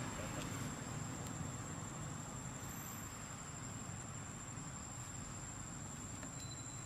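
Insects keeping up a steady, high-pitched drone over a low, even outdoor background hum.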